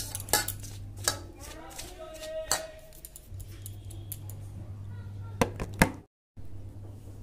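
A hand working dry atta flour in a stainless steel bowl, with sharp clinks and taps against the metal bowl over a steady low hum and a voice faintly in the background. The sound cuts out completely for a moment near the end.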